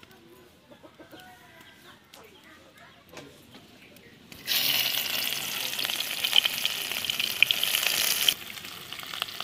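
Chopped onion sizzling loudly in hot oil in an iron kadai, starting suddenly about four and a half seconds in as it hits the oil. The sizzle drops abruptly to a quieter frying near the end. Before it there are only faint scattered taps.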